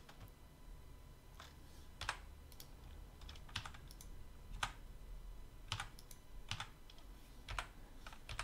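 Faint, irregular clicks of a computer keyboard and mouse as single keys and buttons are pressed, about a dozen over several seconds.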